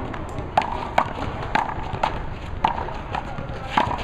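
One-wall handball rally: a string of sharp smacks, about half a second to a second apart, as the rubber ball is struck by hand and bounces off the wall and the court.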